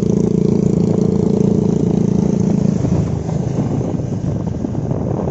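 Motorcycle engine running steadily at road speed, a constant hum that drops away about three seconds in, leaving wind and road rumble.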